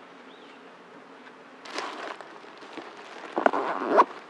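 A faint steady low hum with two short high chirps. Then rustling and handling noises of gear being moved, growing louder in the second half, with a sharp knock near the end.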